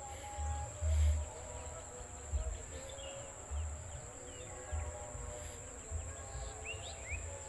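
Insects, crickets by the tags, droning steadily at one high pitch, with low gusts of wind rumbling on the microphone, strongest about a second in.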